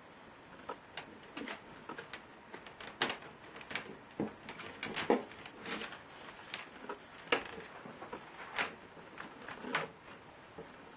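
Irregular small clicks, taps and knocks, about one or two a second, some with a brief ring, from hands and small tools working on a Lenovo Y570 laptop's plastic case and internal parts during disassembly.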